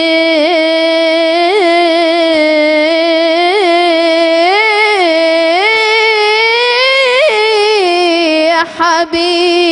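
A young woman singing an Egyptian inshad, an Islamic devotional song praising the Prophet. She holds one long melismatic phrase, the pitch sliding up and down in ornaments, which breaks off briefly near the end and then resumes.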